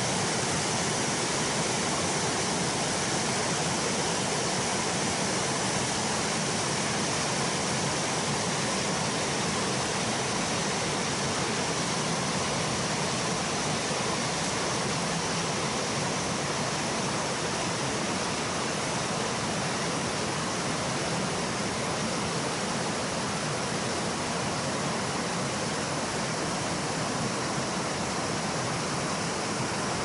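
Mountain stream rushing over boulders in rapids: a steady, loud rush of white water.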